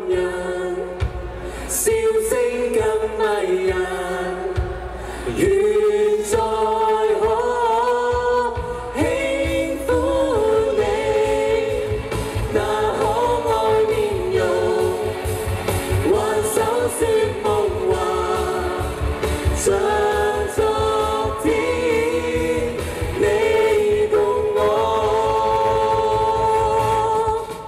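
A pop vocal trio of two men and a woman singing live into microphones over amplified backing music, part of a medley of classic Mandarin pop songs. A steady beat comes in about nine seconds in.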